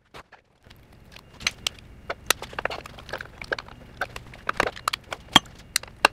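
Irregular sharp clicks and metallic taps of pliers working the line-retaining wedge into a winch drum, the loudest tap a little past five seconds in.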